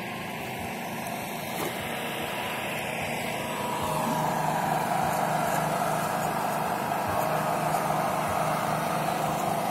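Electric motor of a foam RC F-22 model plane running steadily in flight, a whine that grows louder about four seconds in.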